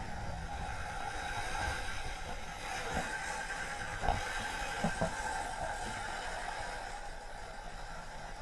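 Steady running noise of a vehicle on the move, with a few short knocks about three, four and five seconds in.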